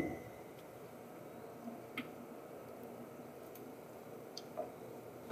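Quiet: a faint low steady hum with a few scattered faint ticks and clicks.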